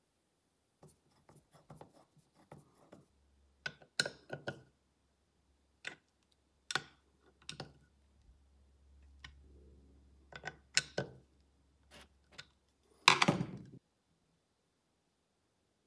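Hand tools on a cast-aluminium throttle body: scattered metallic clicks and taps of a screwdriver and socket wrench as the new idle air control valve's screws are done up. There is a louder short clatter near the end.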